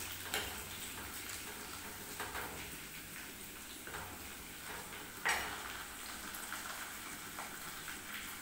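Oil for a dal tadka sizzling steadily in a metal kadai while a metal ladle stirs and scrapes the pan. There are a few light clinks of ladle on pan, and a sharper clink about five seconds in.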